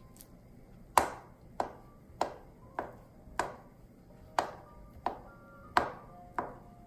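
Chef's knife chopping through gorgonzola cheese and striking a plastic cutting board: about nine sharp, evenly paced cuts, roughly one every two-thirds of a second.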